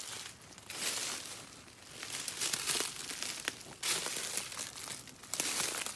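Footsteps crunching through dry leaf litter and the rustle of leafy brush and branches brushing past while pushing through thick undergrowth, in irregular bursts with a few sharp twig snaps.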